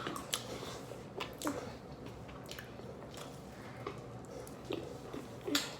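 Someone chewing and biting food close to the microphone: soft, wet mouth sounds with scattered sharp clicks.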